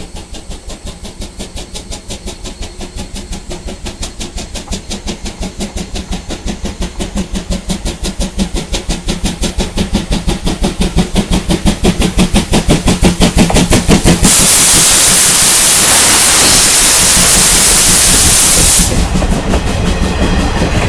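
C12 66 steam tank locomotive approaching under power, its rapid, even exhaust chuffs growing steadily louder. About two-thirds in, a loud steady hiss of steam starts suddenly and lasts several seconds as the engine reaches the trackside spot, then gives way to the clatter of wheels rolling past.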